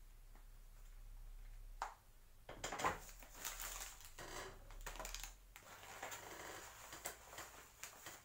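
Plastic wrapping and cardboard packaging rustling and crinkling as items are handled in a box, starting about two and a half seconds in.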